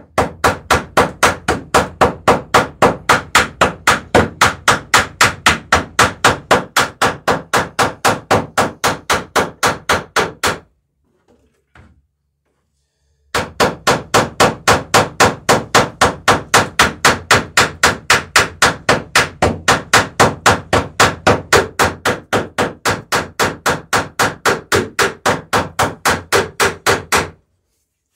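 Rapid, evenly spaced hammer strokes, about four a second, in two long runs with a pause of a few seconds near the middle: peening over a rivet on a wooden dory's lapstrake planking.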